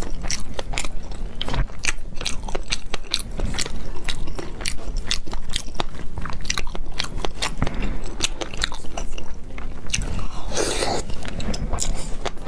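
Close-miked chewing of salmon sushi topped with fish roe: a dense, steady run of wet mouth clicks and smacks. A brief louder rushing sound comes near the end.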